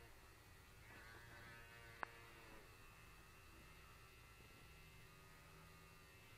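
Faint, steady buzz of a small battery-powered vibrator held against a cat's face, with one sharp click about two seconds in.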